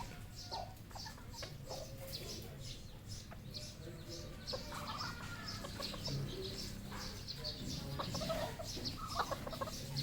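Red junglefowl clucking in short calls, with a steady string of short high chirps throughout.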